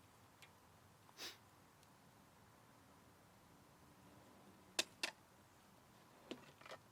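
Near silence: room tone with a soft rustle about a second in, two sharp clicks in quick succession a little past the middle, and two fainter clicks near the end.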